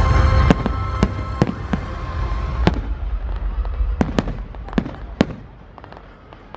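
Fireworks going off: a low rumble of booms with sharp cracks about every half second, over the display's soundtrack music for the first few seconds. The booms and music die away about two and a half seconds in, leaving scattered single cracks that grow fainter.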